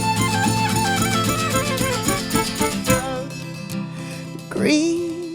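Band music with a violin playing the melody over guitar; the music thins out about halfway through and a note slides up and is held near the end.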